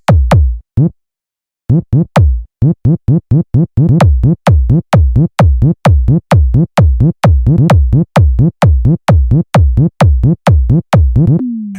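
Electronic bass-check music: deep drum-machine kicks, each dropping in pitch, repeating in a fast steady rhythm of about four a second after a brief silent gap near the start. A long falling bass tone closes it near the end.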